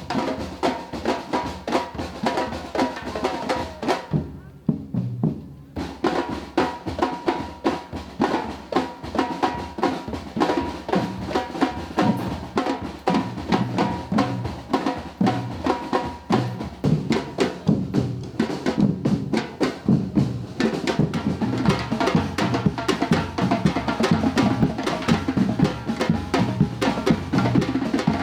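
A batucada percussion band playing a dense, driving samba rhythm on bass drums, snares and other hand percussion. About four seconds in, the higher drums drop out for a moment, leaving only the bass drums, and the full band comes back in about two seconds later.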